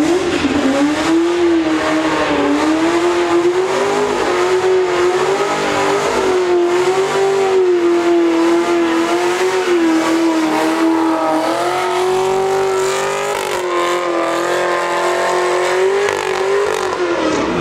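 Chevrolet Camaro doing a long burnout: the engine is held at high revs, its note wavering slightly up and down, over the hiss of spinning tyres. The revs drop off just before the end.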